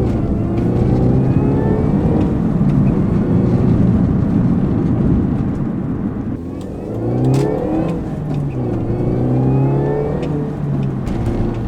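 Mini Cooper S R53's supercharged 1.6-litre four-cylinder running through a resonated Scorpion stainless steel exhaust, its pitch rising and falling several times as it is revved.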